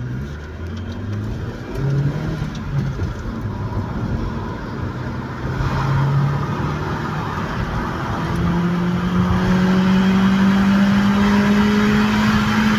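Opel Vectra C's engine heard from inside the cabin, accelerating through the gears. The engine note climbs in short steps with breaks at each shift, then holds one long, slowly rising pull over the last few seconds, growing louder.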